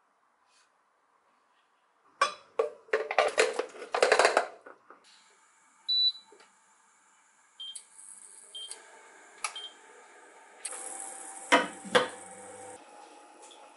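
Portable induction cooktop beeping as its control knob is pressed and set to high heat: one beep, then several shorter ones, over the steady hum of its cooling fan. Before that, a couple of seconds of rustling and clatter. Near the end, a glass pot lid is set on the pot with two clinks.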